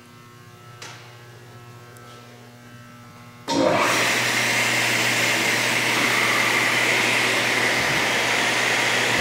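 Altendorf F45 Elmo sliding table saw switched on about a third of the way in: a sudden start into a steady, loud whir of the motor and spinning blade. A little slip comes from the scoring unit, which is spinning a bare disc with no scoring blade fitted.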